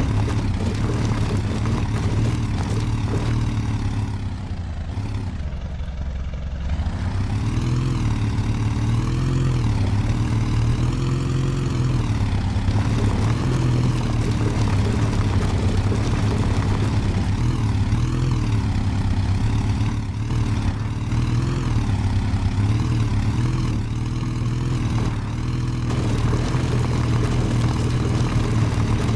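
Off-road 4×4's engine working under load, its pitch rising and falling as the throttle is worked, easing off briefly about five seconds in.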